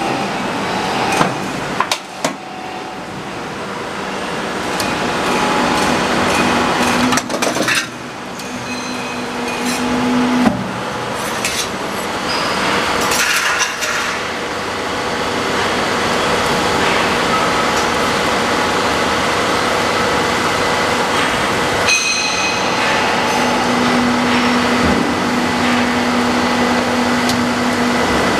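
Roofing-panel roll forming machine running, with steel sheet feeding through its rows of forming rollers: a continuous mechanical clatter and rattle with a few sharp knocks. A steady hum comes in for a few seconds twice, once about a third of the way in and again near the end.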